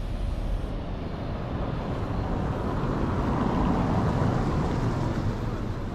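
A motor vehicle passing by on the street, its noise swelling to a peak past the middle and then fading.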